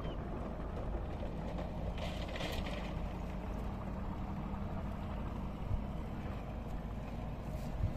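Steady low hum of a running engine, with a brief splash of water about two seconds in as a fishing net is drawn through shallow water.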